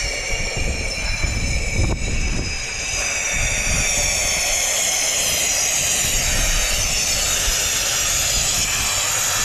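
Compressed gas hissing from a cylinder valve into a balloon used as a fishing float as it is filled. A steady loud hiss, with a faint high whistle in it that slowly drops in pitch.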